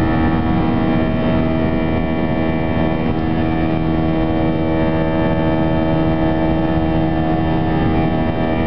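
Airbus A321 jet engines running at climb power, heard from inside the cabin: a steady, even noise with a stack of steady humming tones that does not change.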